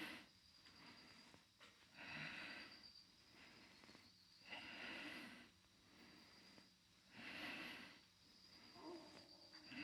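A man breathing hard through a set of exercise reps: a forceful, noisy breath about every two and a half seconds, four times, over a faint steady high-pitched whine.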